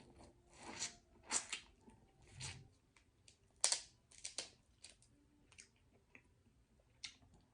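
A person eating seafood close to the microphone: short wet chewing and smacking noises mixed with sharp clicks and crackles, coming irregularly, the sharpest nearly four seconds in.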